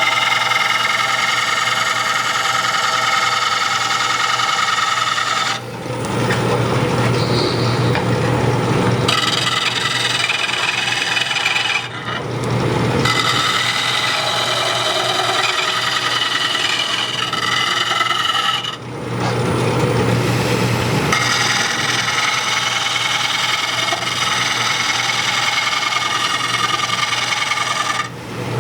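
A turning gouge cutting a green wood bowl blank spinning on a wood lathe: a continuous scraping cut with a shifting pitched whine. The sound dips briefly about four times as the tool eases off the wood.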